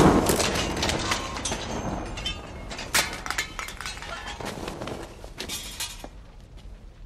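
Aftermath of an explosion: debris and broken glass falling and clattering, many sharp clinks and cracks that thin out and fade over about six seconds, with one louder crack about three seconds in.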